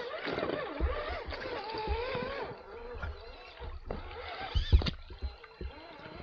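Traxxas TRX-4 RC crawler's electric motor and gearbox whining, the pitch rising and falling as the throttle is worked, with irregular knocks and bumps from the chassis and tyres on rough ground and one sharp knock near the end.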